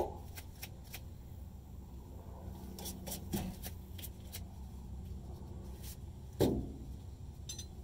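Gloved hands handling fuel lines and clamps under a pickup truck: scattered small clicks and rattles, with one louder knock about six and a half seconds in, over a steady low hum.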